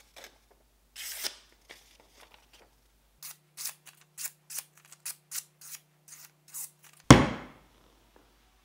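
A hand-forged kitchen knife, made from a drill bit, slices through a sheet of paper in about a dozen short, crisp cuts, roughly three a second: a paper-cutting sharpness test, the blade shaving the sheet cleanly into shreds. Just after seven seconds comes a loud, sharp thud as the knife is stabbed point-first into the wooden workbench.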